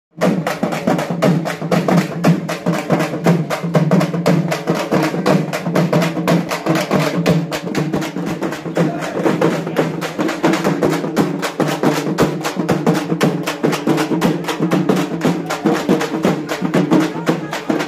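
A group of dappu frame drums struck with sticks in a fast, steady, driving rhythm.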